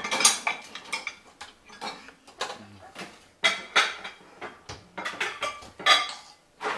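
Dishes and cutlery clinking and clattering as a dishwasher is unloaded, in a series of separate sharp knocks.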